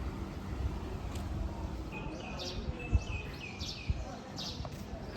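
Birds chirping in a run of short, repeated high calls that begin about two seconds in, over a steady low rumble. Two sharp thumps come in the middle, the first the loudest sound.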